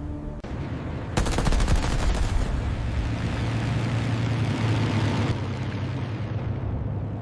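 A burst of rapid automatic gunfire about a second in, many shots in quick succession, followed by a rushing noise that fades away, all over a steady low rumble.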